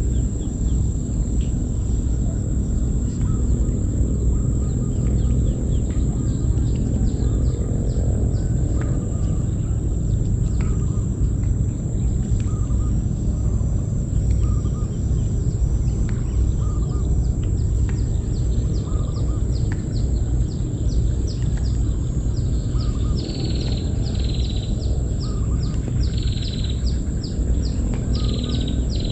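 Birds chirping, with short high calls repeated many times that grow busier near the end and lower chirps every second or two, over a steady low rumble and a constant high-pitched whine.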